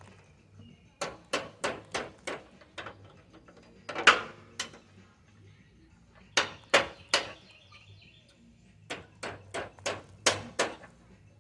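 Sharp knocks from a hand tool striking metal, in four bursts of a few strikes each, about three a second, the loudest about four seconds in.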